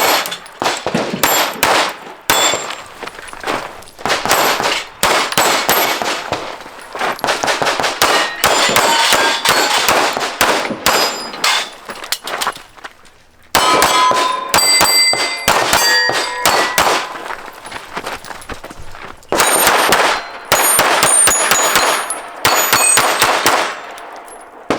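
Strings of rapid pistol shots with steel plate targets ringing as they are hit, broken by two short pauses where the shooter moves or reloads.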